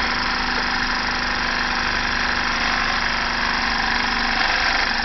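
Small homemade beer-can Stirling engine, with an aluminium piston in a glass test-tube cylinder, running steadily at about 1500 RPM: an even, unchanging mechanical running sound.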